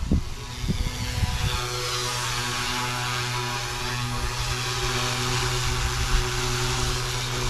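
FW200 RC helicopter's direct-drive motor and rotor flying low with a steady drone and a rushing whoosh from the blades. For about the first second and a half, wind buffets the microphone before the drone takes over.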